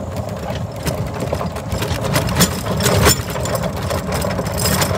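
A vehicle's engine running steadily as it travels slowly over a gravel driveway, with irregular clicks and rattles from the vehicle and the stones, and a sharper knock about three seconds in.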